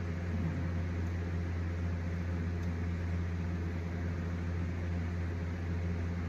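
A small motor running: a steady low hum with a faint hiss over it.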